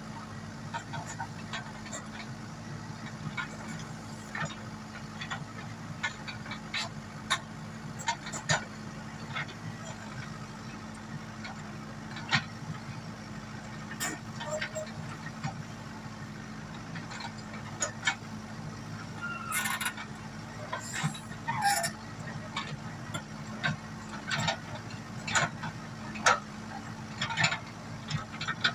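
Komatsu WB93R backhoe loader's diesel engine running at a steady speed, with repeated sharp clanks and knocks from the digging gear working in sand.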